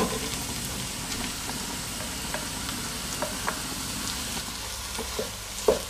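Chopped vegetables sizzling in oil in a frying pan. A wooden spatula scrapes and taps as boiled potato is pushed off a bowl into the pan and stirred in, with a sharper tap at the start and a few light ones after.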